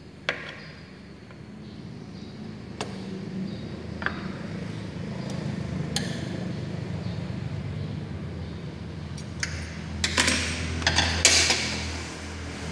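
Steel hand tools clinking against the scooter's starter motor mounting as a socket wrench and extension are worked by hand. The clinks come singly at first, then in a quick rattling cluster about ten seconds in. A low engine hum underneath grows stronger in the second half.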